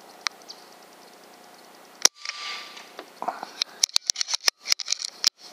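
Umarex Notos PCP air rifle firing one shot, a sharp crack about two seconds in, followed by a short hiss. A rapid run of sharp clicks and knocks follows near the end.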